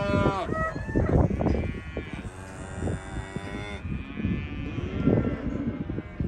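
Cattle mooing: one call tails off just after the start, and a long call is held from about two seconds in, over a running clatter of knocks.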